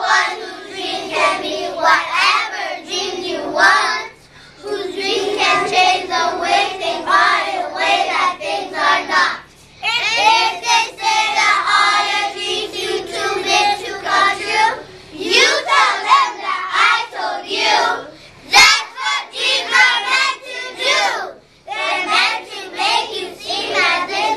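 A group of young children singing together in unison, in phrases broken by short pauses.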